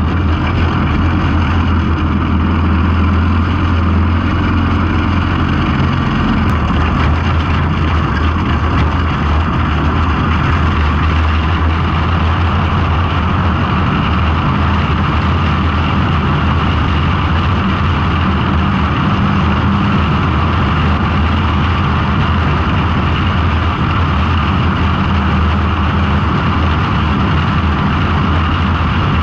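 Engine of a winged dirt-track race car running steadily, heard from the onboard camera in the cockpit, with wind and track noise over it.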